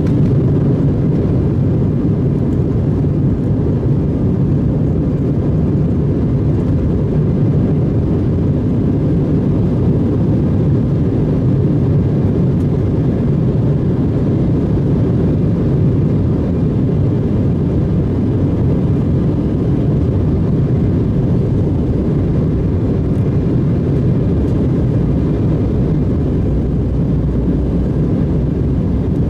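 Steady low rumble inside the cabin of an Embraer E175 regional jet in flight, the noise of its engines and the air rushing past the fuselage, unchanging throughout.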